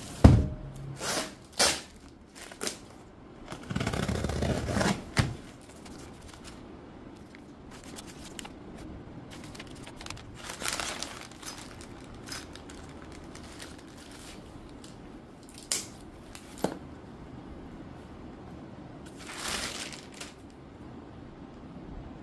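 Cardboard parcel set down on a tiled floor with a sharp thump, then a few knocks and a second or so of tearing as the box is opened, followed by scattered rustling and crinkling of foam wrap and plastic bags.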